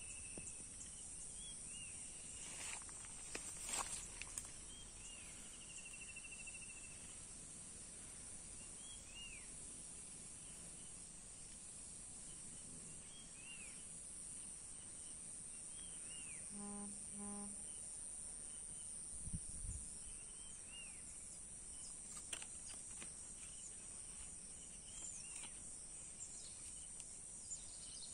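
Faint outdoor ambience: a steady high-pitched insect chorus, like crickets, with short chirping bird calls repeating every second or two. A few clicks come near the start, and two short low-pitched tones sound about midway.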